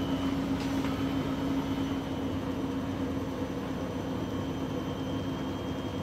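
Grundig front-loading washing machine spinning its drum at a steady speed, a constant motor hum over an even rushing noise. The load of towels is slightly out of balance, so the machine wobbles a little as it spins.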